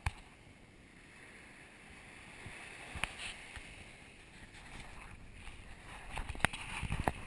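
Small waves washing gently onto a sandy shore, a soft hiss of water that grows louder near the end. A few sharp knocks cut through it, the strongest at the very start and near the end.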